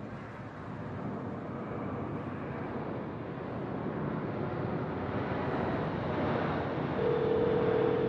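A wind-like rushing noise from an intro sound effect, slowly swelling louder, with a steady held tone joining about seven seconds in.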